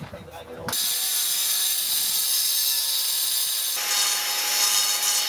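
A power tool's stone-cutting disc spinning and cutting a furrow into a granite millstone. The sound cuts in abruptly under a second in and grows harsher about four seconds in as the disc bites into the stone.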